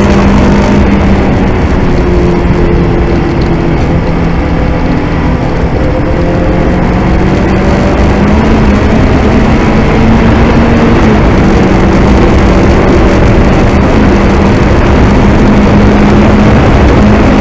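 VW Golf Mk2's 2.0-litre 16-valve turbocharged four-cylinder engine running hard under load, its pitch nearly steady with small rises. The engine is over a dense rush of noise, and it drops a little in loudness a few seconds in before holding steady again.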